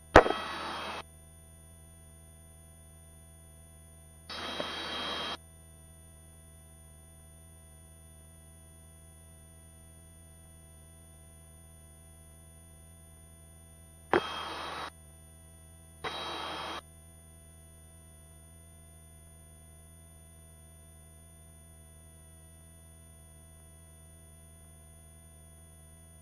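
Helicopter headset intercom feed: a steady low hum with faint high steady tones, broken four times by about a second of hiss as a voice-activated headset microphone opens and closes. The first and third openings start with a sharp click.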